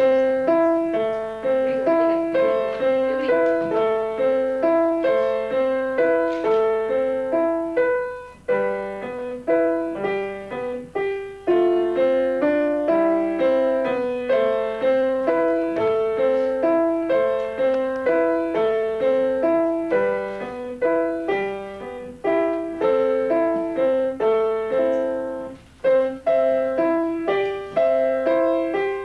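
Acoustic piano playing a simple beginner's piece, notes struck at an even pulse of about two a second, with short breaks twice along the way.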